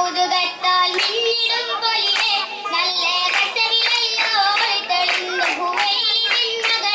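Oppana song sung by female voices in Malayalam, with the dancers' sharp rhythmic hand claps keeping time throughout.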